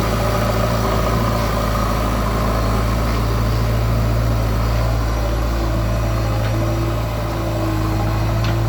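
JCB 3DX backhoe loader's diesel engine running steadily with a deep hum; in the second half a thin higher tone comes and goes over it.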